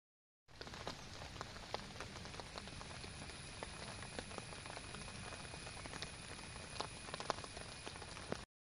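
Rain falling on garden plants: a steady hiss with many sharp drop ticks. It starts abruptly shortly after the beginning and cuts off abruptly near the end.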